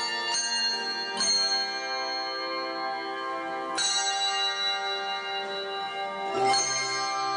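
Handbell choir ringing struck chords: four fresh strikes, about a second apart at first and then several seconds apart, each chord left to ring on and overlap with the next.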